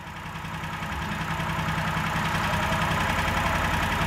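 Fuel-injected 420cc single-cylinder small engine idling steadily and evenly, shortly after starting, fading in over the first second.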